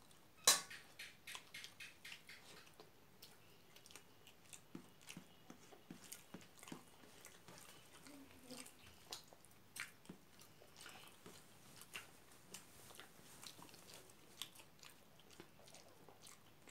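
Close-up eating sounds: chewing of rice and pork curry, with many short wet clicks throughout and a sharper one about half a second in.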